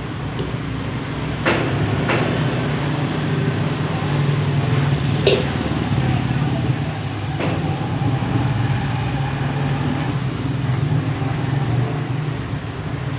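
Steady low mechanical hum with a noisy rumble, broken by a few sharp knocks or clanks, four of them in the first half.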